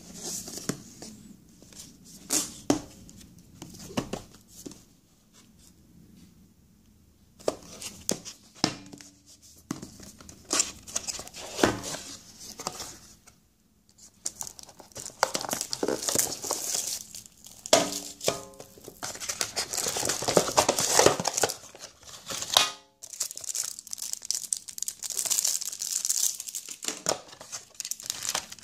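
Hands unpacking a cardboard electronics box: knocks and scrapes from the cardboard lid and flaps, and packaging plastic crinkling and rustling in long stretches through the second half. There are a couple of quick runs of clicks along the way.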